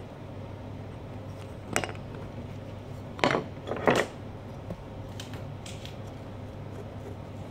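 A pumpkin-carving knife working through the pumpkin's rind in a few short, sharp scrapes and clicks, the loudest about two, three and four seconds in, over a steady low hum.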